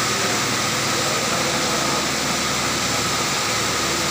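Large Cummins standby diesel generator set of about 2 megawatts running steadily: an even engine drone with a constant hum and no change in speed.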